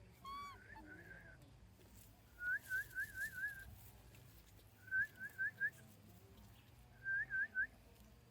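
Short, high squeaky chirps from an animal, in quick runs of three to five, several times over.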